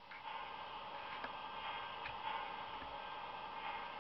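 LionChief locomotive sound board playing a steady steam hiss through the toy locomotive's small speaker while the engine stands still, with a couple of faint soft ticks.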